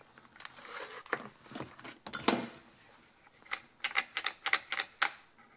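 Plastic chainsaw housing and parts being handled and turned over: a scrape and clunk about two seconds in, then a rapid run of light clicks.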